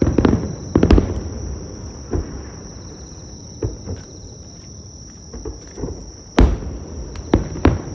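Aerial firework shells bursting: a series of booms at irregular intervals, the loudest about one second in and about six and a half seconds in. A steady high insect trill runs underneath.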